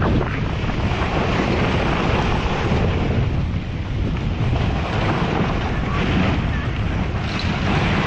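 Mudslide torrent of water and debris rushing down a stream bed in a steady, dense roar, with wind buffeting the microphone.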